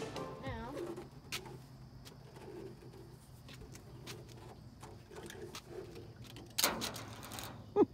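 A dove cooing faintly, a series of low soft coos, with a few light clicks. Near the end there is a brief, louder rushing noise lasting about a second.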